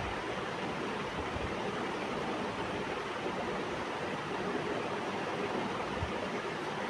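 Steady rushing background noise with no distinct events, the even hiss of a room's ambient noise.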